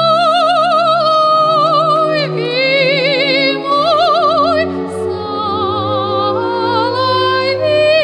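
A woman singing in an operatic style, holding long notes with a wide, even vibrato, over a soft sustained keyboard accompaniment. A deep bass line comes in about halfway.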